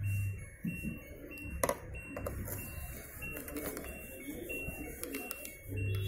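Background music: an electronic tune of short high beeps alternating between two pitches over a low hum, with a sharp click about one and a half seconds in.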